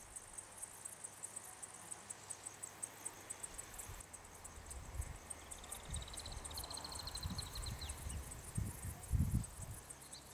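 Crickets chirping in a fast, steady pulse. A second, lower trill joins in about halfway through, with some low rumbling toward the end.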